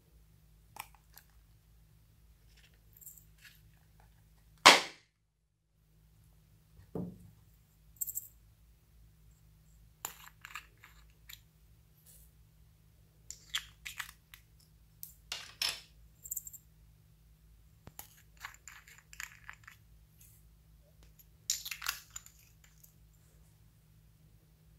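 Small plastic cases and jars being handled: light clicks, taps and rattling clusters, with one loud sharp snap about five seconds in and a duller knock about two seconds after it.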